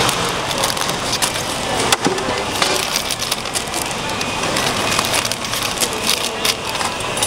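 Thin clear plastic bag crinkling and rustling as handfuls of sliced green mango are stuffed into it, with many small sharp crackles.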